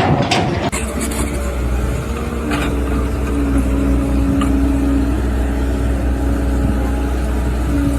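An engine running steadily with a low rumble and a steady hum, starting abruptly a little under a second in.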